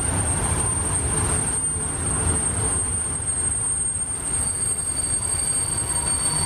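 Train running by with a low rumble and a steady high-pitched squeal; a second, lower squealing tone joins about two-thirds of the way through.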